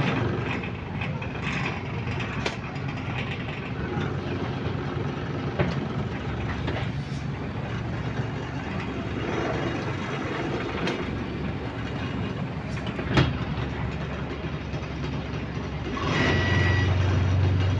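City bus running on the road, heard from inside: a steady engine and road rumble with occasional sharp rattles and knocks. Near the end a deeper drone swells up, and a brief high beep sounds.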